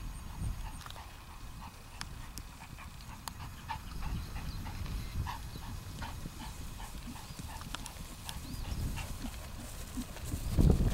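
A horse's hoofbeats on grass at the trot, a steady run of soft knocks. The sound gets louder and heavier near the end.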